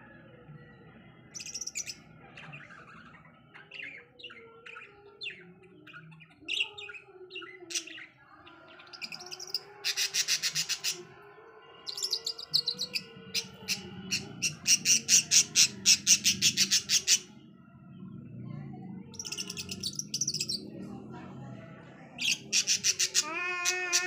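Budgerigars chattering: bursts of rapid, scratchy chirping and warbling, loudest in a long stretch past the middle and again near the end.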